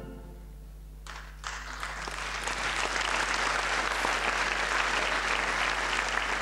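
Audience applause that breaks out about a second and a half in, after the orchestra's final chord has died away, and swells to steady clapping.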